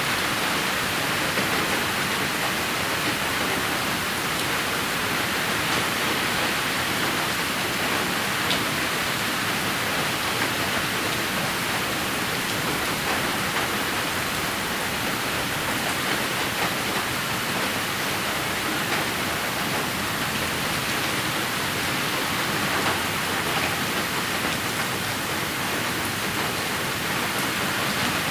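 Steady rain falling: an even, dense hiss with a few faint drop ticks.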